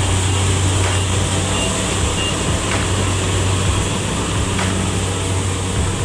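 Rice combine harvester running steadily while cutting through the crop: a constant low engine drone with an even hiss from the machinery over it, and a few faint clicks.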